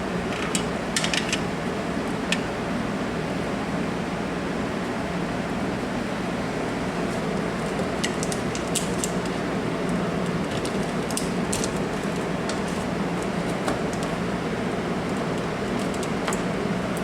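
Steady whooshing room hum, like a fan, with light clicks and taps scattered through it: a few near the start and a cluster about eight to twelve seconds in, the sound of small objects and cords being handled.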